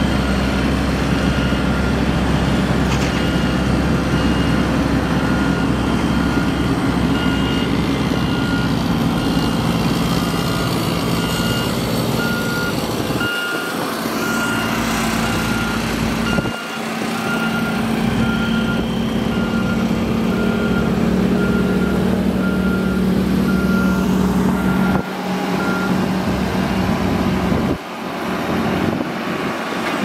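Heavy road-roller diesel engines running, with a reversing alarm beeping steadily over them; the beeping stops near the end.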